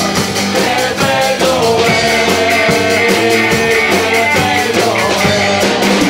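Live rock band playing a fast, steady beat on drum kit, electric and acoustic guitars and bass, with singing over it.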